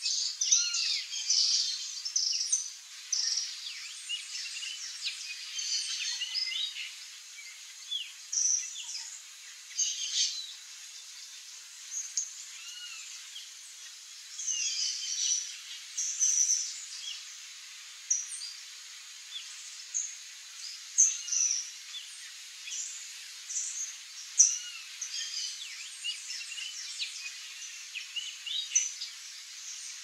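Small songbirds chirping and calling: many short, high chirps and arched whistled notes, overlapping and coming thick and fast, over a faint steady high hiss.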